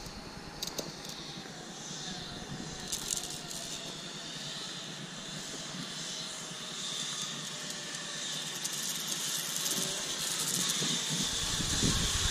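Zip line trolley running down the steel cable as a rider approaches: a steady hiss that grows gradually louder, with a low rumble joining near the end.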